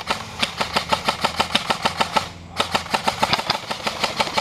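Airsoft guns firing a rapid string of sharp clacking shots, about seven or eight a second, with a brief pause a little after two seconds in.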